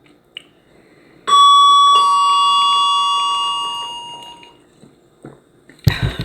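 Two-note doorbell chime, ding-dong: a higher note, then a lower one, each ringing out and fading over a couple of seconds. A brief loud thump follows near the end.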